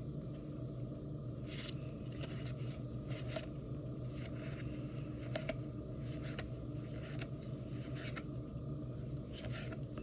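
Pokémon trading cards sliding and rubbing against one another as a pack is flipped through card by card, a soft scraping stroke every half second or so over a low steady hum.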